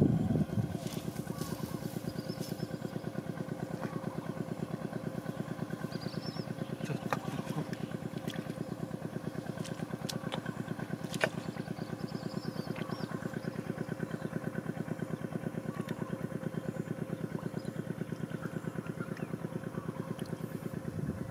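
A small engine running steadily out of sight, with an even, rapid chugging pulse. A few sharp clicks and brief high chirps sound over it.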